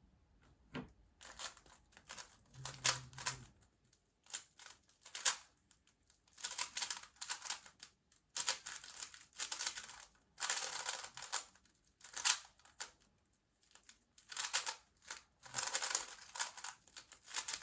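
GAN 356 M speedcube being turned fast by hand: rapid plastic clicking and clacking in bursts of a second or two, with short pauses between them.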